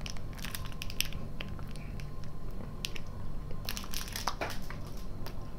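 Close-miked mouth sounds of biting into and chewing a chocolate candy, with its wrapper crinkling: scattered small clicks and crackles, thickest about four seconds in.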